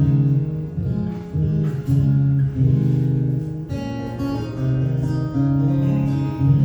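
Acoustic guitar being strummed and picked, a run of ringing chords changing about every second.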